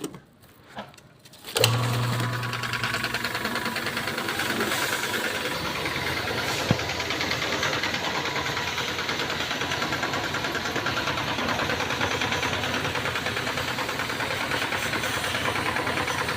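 Small electric pressure washer used for aircon cleaning, switched on about one and a half seconds in, then running steadily with a fast pulsing hiss.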